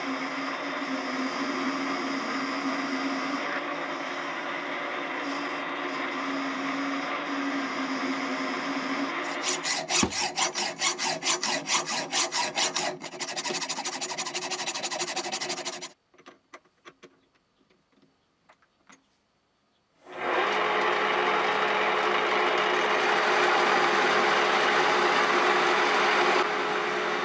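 Small metalworking machine tool running and cutting metal, with a steady hum under the cutting noise. About ten seconds in there are a few seconds of fast rhythmic scraping strokes; the sound then drops away for about four seconds, leaving only faint clicks, and the machine runs and cuts again from about twenty seconds in.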